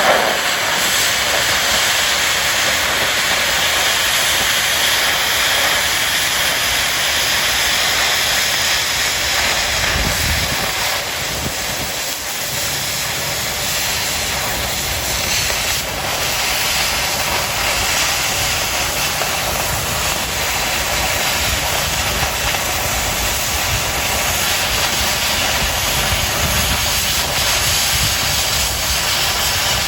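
Oxy-fuel cutting torch hissing steadily as it cuts through 1/4-inch steel plate.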